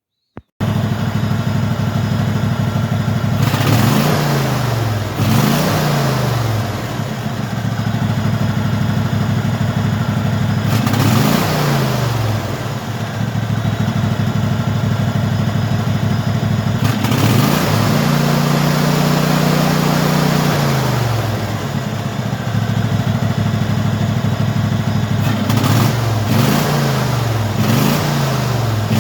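Craftsman hydrostatic lawn tractor's engine running, with its speed swinging up and back down several times as the throttle is blipped, and held higher for about two seconds past the middle.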